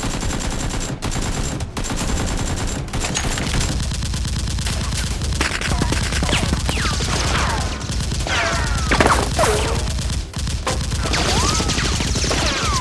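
Sustained rapid gunfire, a dense stream of shots like automatic weapons firing, with high sliding whines or cries over it in the second half.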